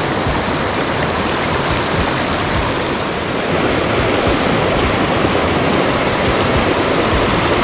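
Steady rush of a mountain headwater stream, water running over rocks in an even, continuous wash.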